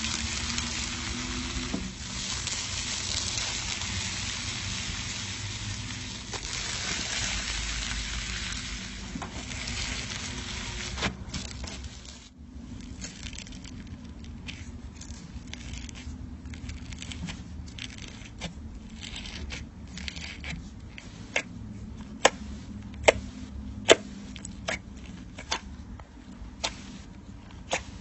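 Crunchy slime being squeezed and worked by hand: dense crackling for about the first ten seconds, then, after a short break, sparser sharp pops and clicks.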